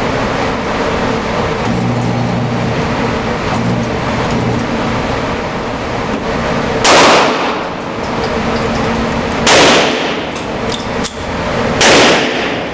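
Three .22 LR pistol shots from a Makarov fitted with a .22 LR conversion kit, fired slowly about two and a half seconds apart, the first about seven seconds in. Each shot echoes briefly in the indoor range, over steady background noise.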